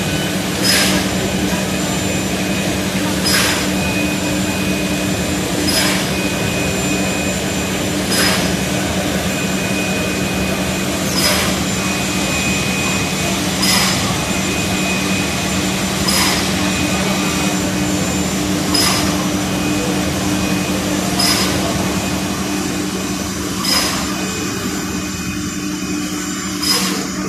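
Automatic spray-painting machine running: a steady machine hum with a faint higher whine, and a short hiss about every two and a half seconds as the spray heads work over the panels.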